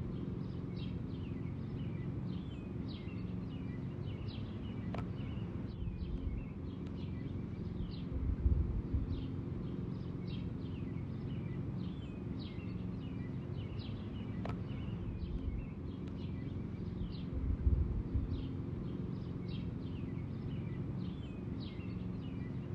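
Lawn mower running with a steady low hum that swells briefly about every nine seconds, while small birds chirp throughout.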